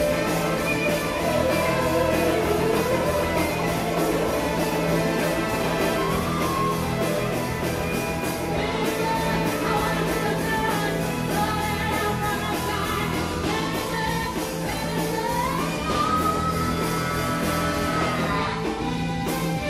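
Live pop-rock band performance: a woman singing lead, with glides and long held notes, over a full band with drum kit and horn section.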